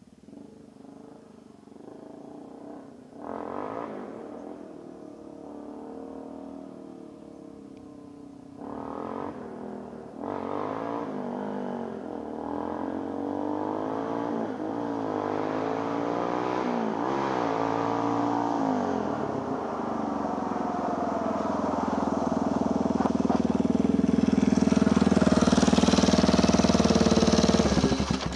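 Yamaha Warrior 350 ATV's single-cylinder four-stroke engine revving a couple of times at a distance, then accelerating closer with its pitch rising and falling through the gears. It runs loud and steady right beside the microphone near the end, then cuts off suddenly.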